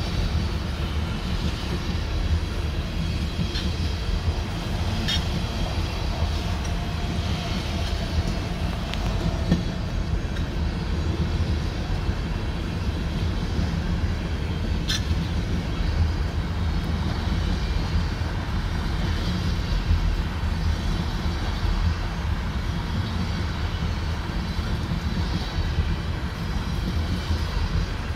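Freight train tank cars rolling past on steel rails: a steady rumble of wheels on track, with a few brief sharp metallic clicks from the wheels and rails.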